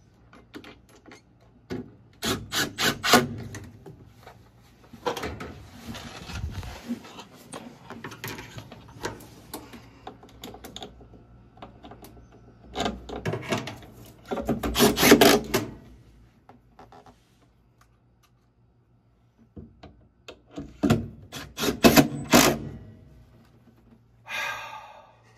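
Clicks, knocks and scraping of metal parts and hand tools being worked while a replacement inducer motor assembly is fitted into a gas furnace, with two bursts of rapid knocking and a pause with almost nothing in between.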